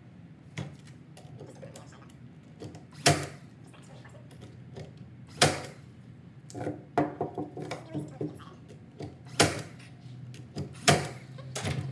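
Porter-Cable cordless nail gun firing finish nails into the corners of a wooden frame: five sharp shots a second or more apart, with softer knocks of the frame being handled between them.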